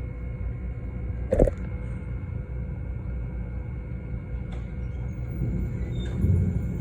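Low rumble of distant thunder under a steady room hum, swelling deeper near the end. A single sharp click comes about a second and a half in.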